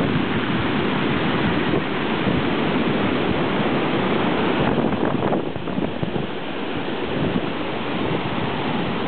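Hurricane-driven surf and strong wind rushing steadily, with gusts buffeting the microphone.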